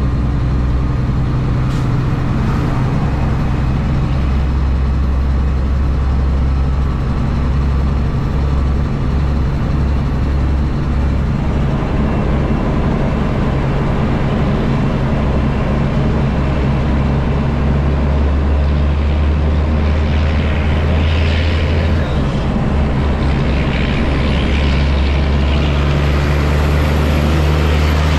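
ProStar semi truck's diesel engine running steadily under way, heard from inside the cab with road noise. Its low drone shifts in pitch now and then.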